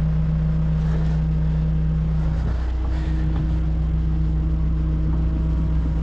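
Hino rollback tow truck's diesel engine running at a steady hum, driving the bed hydraulics and winch while a tool box is pulled up the tilted deck. Its tone shifts slightly about two and a half seconds in.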